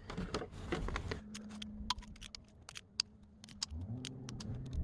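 Irregular light metallic clicks and clinks of hand tools and engine parts being handled. A low hum starts near the end.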